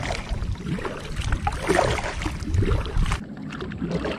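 Kayak paddle strokes splashing in river water, irregular, over a low rumble that stops about three seconds in.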